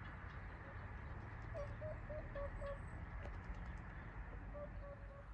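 A waterbird calling: a run of about five short, clear notes, then a few more near the end, over a steady low rumble.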